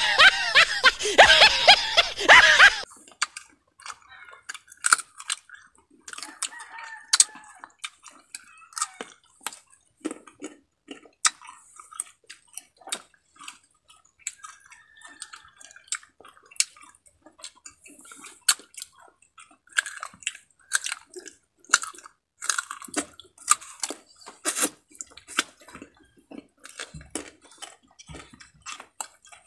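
Crisp unripe green mango being bitten and chewed close to the microphone: many sharp crunches with wet chewing between them. It opens with about three seconds of loud laughter-like voice that cuts off suddenly.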